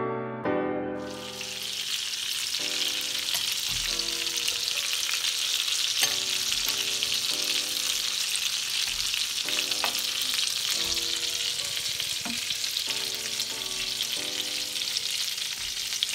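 Lamb mince kebabs shallow-frying in oil in a frying pan, a steady sizzle that comes in about a second in. A couple of light clicks from metal tongs sound against the pan.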